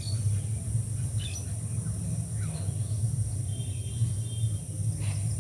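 A steady low hum with a few short, faint high chirps over it, including a brief trill about three and a half seconds in.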